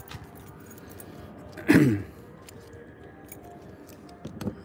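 Small clicks and handling noise, with one short sound sliding down in pitch about two seconds in. Near the end, a bunch of keys jangles as a key is brought to a compartment door lock.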